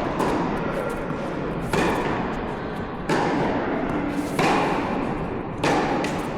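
A tennis rally: rackets strike the ball in turn with a sharp pop about every one and a half seconds, five hits in all, each ringing on briefly.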